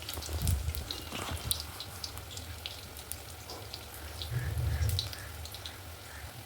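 Besan-battered potato pakoras frying in hot oil: a steady sizzle scattered with small crackles and pops. There are two dull low bumps, about half a second in and again around four and a half seconds in.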